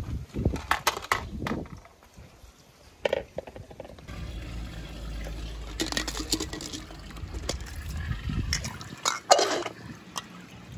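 Pool water splashing and sloshing as a skimmer net is moved through it, with several sharp clicks and knocks. A low steady rumble runs through the middle stretch.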